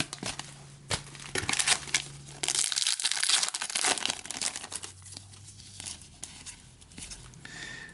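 Crinkling and tearing of a hockey card pack wrapper, with cards being handled. It is busiest in the middle, then settles into lighter rustling.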